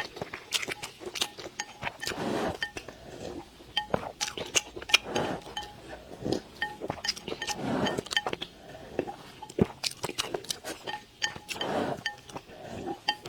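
Close-up eating sounds: repeated sharp clinks of utensils against dishes, with short stretches of chewing between them.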